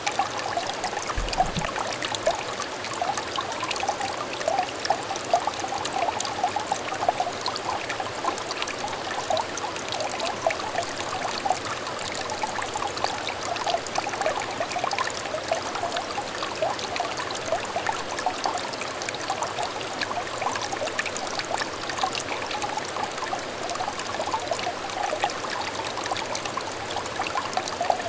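A small stream trickling steadily, with a dense patter of little bubbling, gurgling notes.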